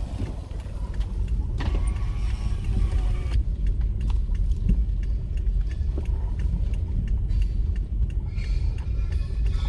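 Low, steady rumble of a car on the move, heard from the vehicle the recording is made in, with a few short knocks and rattles over the rough road.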